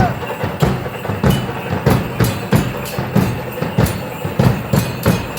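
Drums of a traditional Mexican danza beating a steady rhythm, about three strokes a second.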